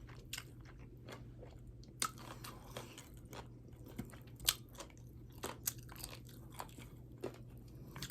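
A person chewing food close to the microphone, with irregular wet mouth clicks and smacks, over a faint steady hum.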